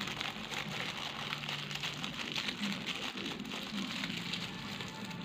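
Paper crinkling and rustling steadily as a homemade cough toffee is wrapped by hand.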